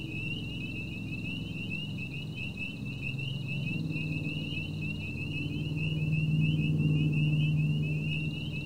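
A motor vehicle's low engine hum grows louder about halfway through and is loudest near the end. Throughout, a continuous high-pitched trilling chorus of many rapid repeated calls carries on steadily.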